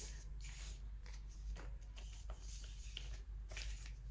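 Foam jigsaw puzzle pieces being picked up and moved by hand over a foam board: faint soft rustles and light taps at irregular moments, over a low steady hum.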